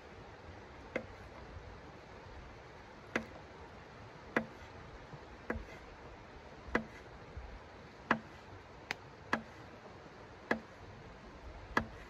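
A knife blade working against a small hand-held block, each stroke giving a sharp click: about ten clicks at uneven intervals of roughly a second.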